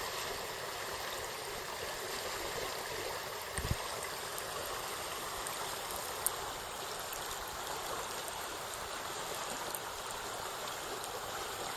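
Shallow burn running over a stony bed: a steady, continuous rush of flowing water, with a brief low thump about a third of the way in.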